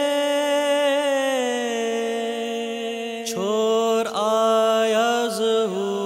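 A man's voice singing a naat with no instruments heard: a long held note that slides slowly down, then about three seconds in a new phrase of shorter notes that bend and waver.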